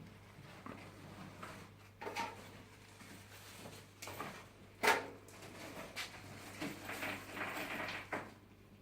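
Irregular knocks, clicks and scraping of rack parts being handled during AV rack assembly, with one sharp knock about five seconds in and a stretch of scraping near the end.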